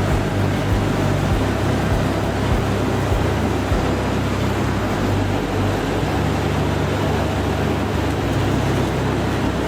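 Heavy machinery running steadily: a low engine drone under a dense rushing, grinding noise, with a few short knocks in the first four seconds.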